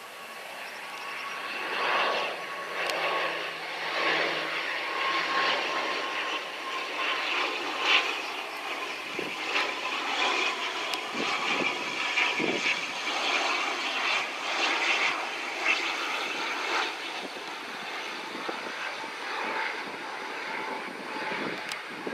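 An ATR 72-212A turboprop on landing approach, its two Pratt & Whitney PW127 engines and propellers making a steady rushing drone. Within the drone a thin whine sinks slightly in pitch.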